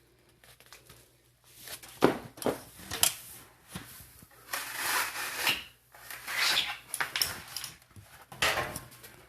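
A few sharp knocks, then several longer rasping scrapes, from hand work with tools on furnace ductwork.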